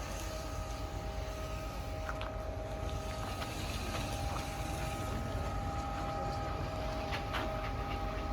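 A motor running steadily: a low rumble with a constant whine over it, with a few faint knocks about two seconds in and again near the end.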